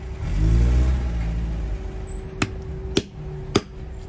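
A motor vehicle passes with a low rumble during the first couple of seconds. After that a shoe repairer's small hammer strikes four sharp, evenly spaced taps on a tool held against a sneaker.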